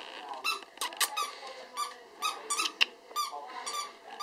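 Dwarf poodle puppy whimpering in a rapid run of short, high-pitched squeaks, two or three a second, with a few sharp clicks among them.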